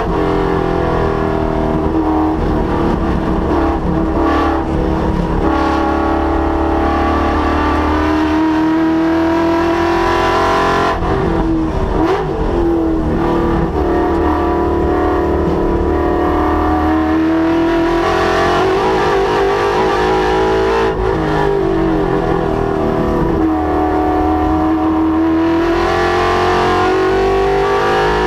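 Ford Mustang's Coyote 5.0 V8 being driven hard on a race track, its revs climbing and dropping again and again as it accelerates, shifts and slows for corners.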